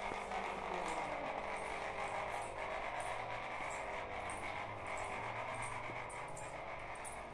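A household electric motor running steadily, a hum with a whirring hiss; it is kept running constantly. Light clicks and rustles of the phone being handled are heard over it.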